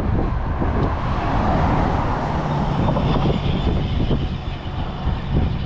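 A motor vehicle passing close by on the road, its tyre and engine noise swelling and fading, with wind buffeting the microphone.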